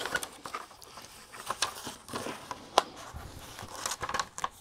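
Crinkling and rustling of a diamond-painting canvas and its glossy protective release sheet being handled and flipped over, with scattered light clicks and crackles.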